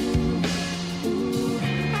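Live R&B band music with guitar, bass and drums playing between sung lines.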